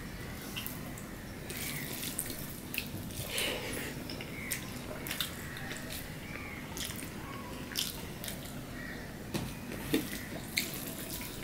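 Close-up eating sounds: wet chewing and lip smacks, with fingers mixing rice against a stainless steel plate. Scattered sharp clicks and smacks come throughout, a few louder ones near the end.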